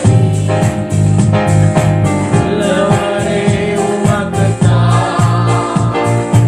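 Christian worship song: singing over instrumental backing with a strong bass line.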